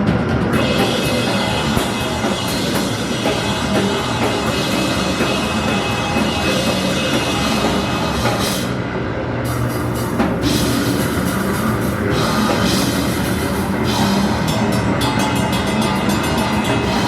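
A band playing loud, heavy rock music live, with a drum kit and crashing cymbals. The top end of the cymbals drops out briefly about halfway through, then returns.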